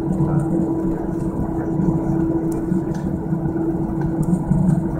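Airbus A320 cabin noise while taxiing: the jet engines running at idle, a steady rumble with one held tone, heard from inside the cabin.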